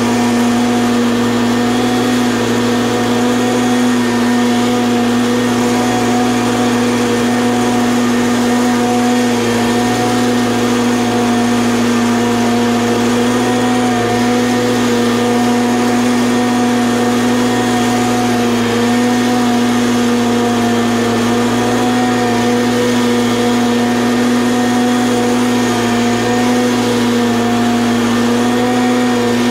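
Commercial stand-on mower engine running steadily while mowing grass, a constant drone that holds one pitch throughout.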